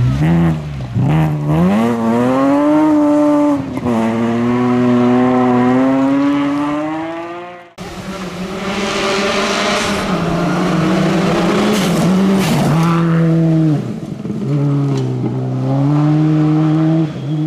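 Rally car engines at full throttle on a gravel stage. First a BMW 3 Series (E46) rally car revs hard, its pitch climbing and dropping sharply through quick gear changes. The sound cuts off suddenly about eight seconds in, and a Subaru Impreza rally car is heard at high revs, its pitch dipping and recovering as it lifts and changes gear.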